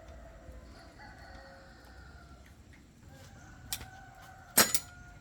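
A rooster crowing in the background, drawn-out calls through the first few seconds. Near the end come two sharp knocks about a second apart, the second much louder and ringing briefly.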